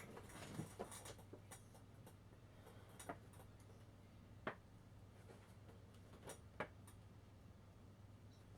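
Near silence: room tone with a steady low hum and a few faint, isolated clicks and taps of boxed collectible figures and packaging being handled.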